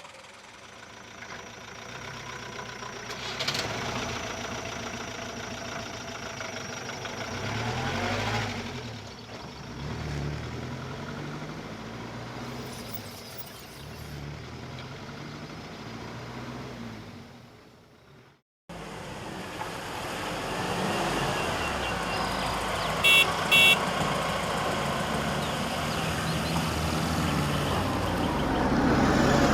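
Hindustan Ambassador car's engine running and being revved, rising and falling in pitch several times before fading away. After a sudden cut, a second recording of the car running steadily, with two short horn beeps about two-thirds of the way through.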